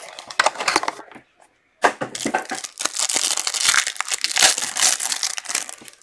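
Wrapper of a pack of football trading cards crinkling and tearing as it is ripped open by hand, with a brief pause about a second in before a longer stretch of dense crinkling.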